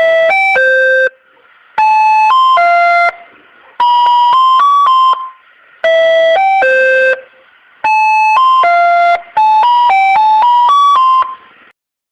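Electronic ice cream vendor jingle: a simple melody of clean beeping notes in short phrases with brief gaps between them, the tune coming round a second time about halfway through.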